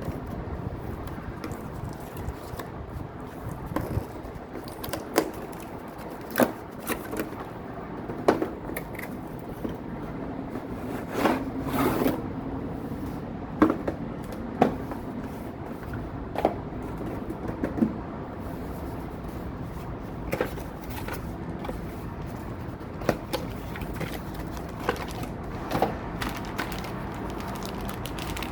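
Hands handling and unpacking a toy and its packaging: scattered clicks, taps and scrapes, with a longer scrape about eleven seconds in, over a steady low background hum.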